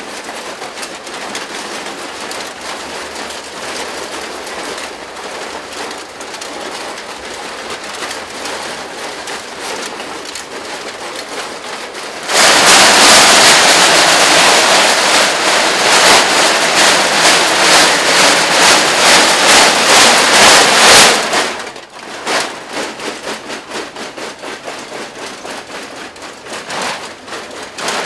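Full-body costumes covered in hundreds of empty aluminium drink cans clattering and rattling as the wearers move. About twelve seconds in the clatter becomes much louder and close for some nine seconds, then falls back to a steadier, quieter rattle.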